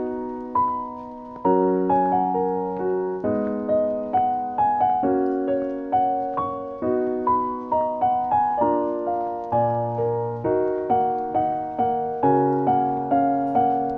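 Background piano music: a gentle melody over sustained bass notes, struck notes ringing and decaying at a moderate pace.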